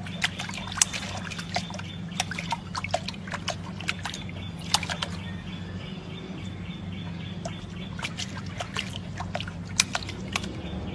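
Small splashes and drips of water as a puppy paws at a stone basin, coming irregularly with a few sharper splashes about a second, five seconds and ten seconds in. A steady low hum runs underneath.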